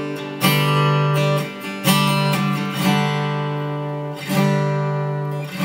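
Steel-string acoustic guitar strummed: four chords, each left to ring before the next, changing chord with each strum as a variation on the chords of the key of G.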